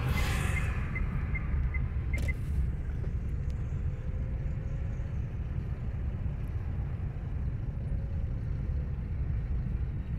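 Road and engine noise inside a moving car's cabin: a steady low rumble, with a single sharp click about two seconds in.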